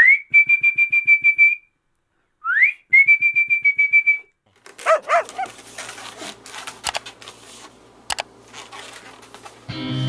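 Two whistles: each slides up in pitch, then holds a high note with a fast warble for about a second and a half. They are followed by a few short squeaky glides, some rustling noise and two sharp clicks. Music starts near the end.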